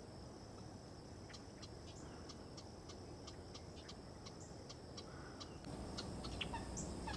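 Small birds giving short, high chip calls, about two a second, over a steady thin high tone.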